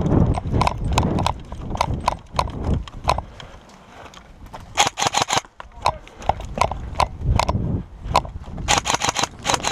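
Footsteps of a player moving over rough ground: heavy, irregular thuds in the first few seconds. Two quick runs of sharp clicks follow, one about halfway through and one near the end.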